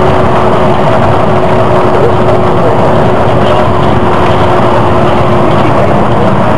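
Volvo Olympian double-decker bus under way, heard from inside: its diesel engine runs steadily under a loud mix of road and wind noise. A steady whine stops about five and a half seconds in.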